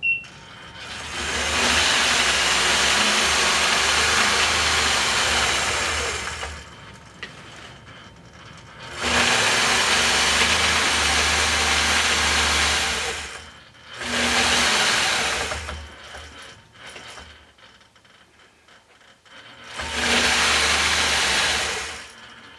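Longarm quilting machine stitching along a ruler in four separate runs of a few seconds each, stopping in between. A short beep sounds right at the start.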